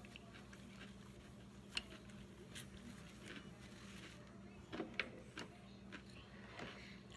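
Quiet eating sounds: scattered small clicks and taps, with a sharper one about two seconds in and a few more around five seconds in as wooden chopsticks are picked up from a plate, over a low steady hum.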